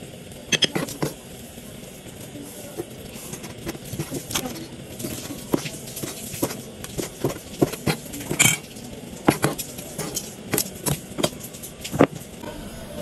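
Cleaver chopping cooked meat on a plastic cutting board: irregular knocks of the blade on the board, mixed with clicks of metal tongs. Near the end a sharper knock as the knife and tongs are set down on the board.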